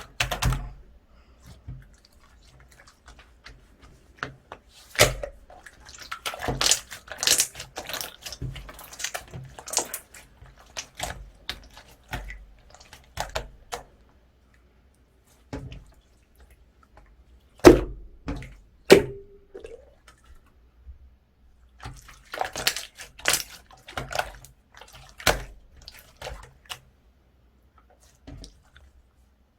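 Hands kneading, stretching and folding two slimes together to mix them: irregular wet clicks, squishes and pops with short pauses. A brief low squelch comes a little past the middle.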